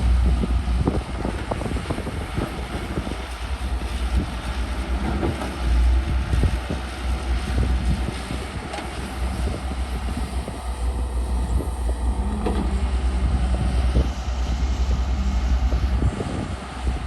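Excavator diesel engine running, with wind buffeting the microphone and scattered knocks and clanks.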